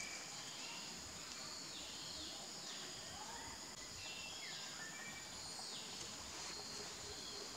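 Tree-canopy ambience: a steady high insect drone, with a bird calling over and over in short sliding whistles, roughly one call every second or so.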